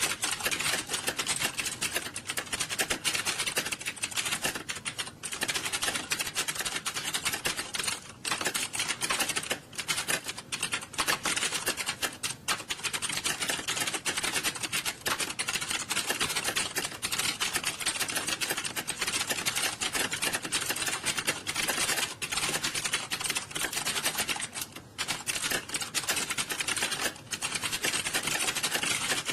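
Many computer keyboards being typed on fast at once in a typing-test hall, a dense, continuous clatter of overlapping keystrokes.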